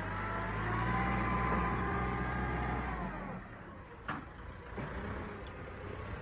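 Kubota M6040 tractor's diesel engine running at steady revs. About three seconds in, its note falls and gets quieter, and a single sharp knock follows about a second later.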